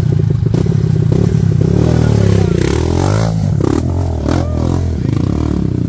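Enduro dirt bike engine idling with a rapid steady chug, then revved so that its pitch rises and falls several times in the middle before settling back.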